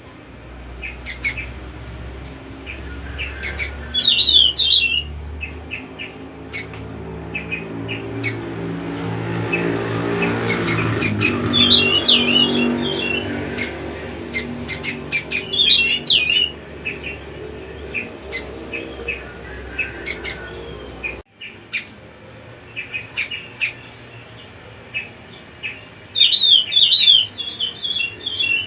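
Cucak rumbai songbird calling in repeated bursts of quick, high chirps, with scattered shorter chirps between them. A steady low hum swells and fades in the middle.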